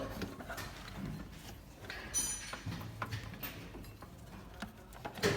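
Scattered faint clicks and knocks of handling, with a short metallic ring about two seconds in.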